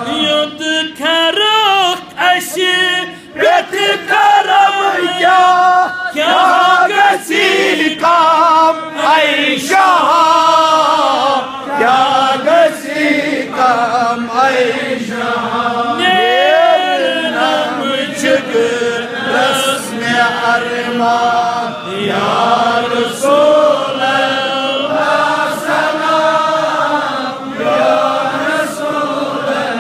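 A man's voice chanting a devotional recitation without accompaniment, in long melodic notes with ornamented, wavering pitch.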